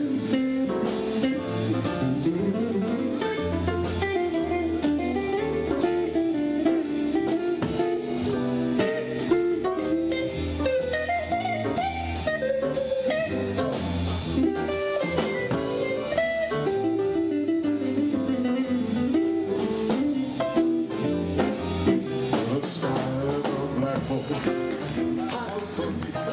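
A live band plays an instrumental jazz-blues passage: a guitar carries the lead line over bass and drums.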